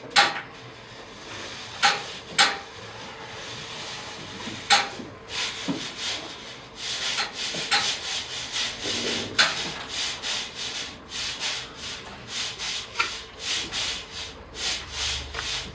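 A few sharp knocks, then a run of rhythmic scraping or rubbing strokes, about two or three a second.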